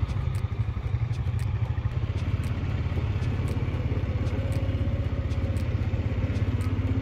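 ATV (quad bike) engine running steadily, heard from the rider's seat as a continuous low, evenly pulsing throb.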